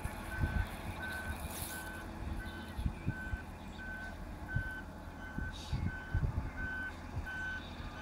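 Backup alarm of a reversing articulated dump truck, beeping steadily a little under twice a second over a low engine rumble.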